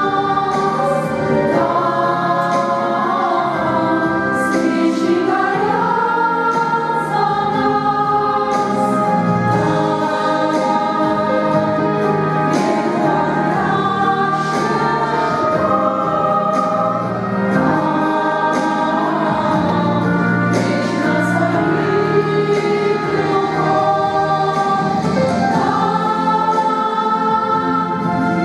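A church choir singing in harmony, several voices moving together in one unbroken passage.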